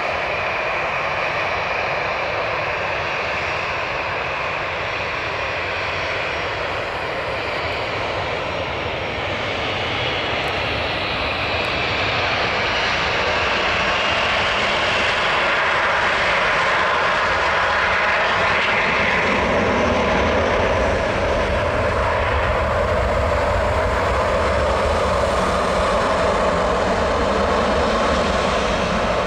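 Gulfstream G650ER business jet's twin Rolls-Royce BR725 turbofans on the takeoff run: a steady jet roar with a high fan whine at first, growing louder from about twelve seconds in as the jet accelerates down the runway and lifts off.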